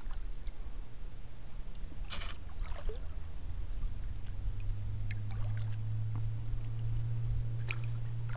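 Kayak paddling: water dripping and splashing off the paddle blades, with sharper splashes about two seconds in and near the end. Underneath is a steady low hum that gets louder from about halfway through.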